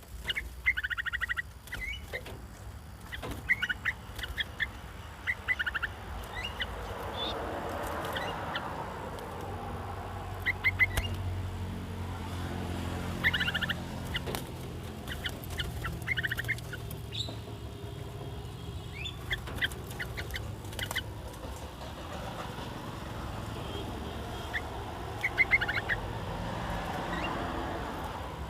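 Caged bulbuls giving short, rapid chattering calls in bursts every second or two, with a low rumble swelling in the background through the middle.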